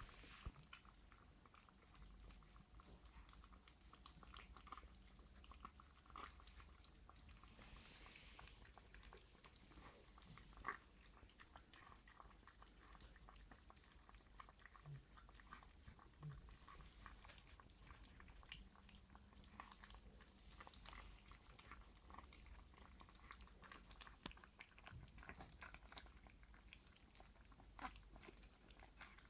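Two Papillon puppies eating soft food from a glass bowl: faint, irregular wet chewing with many small clicks, one sharper click about ten seconds in.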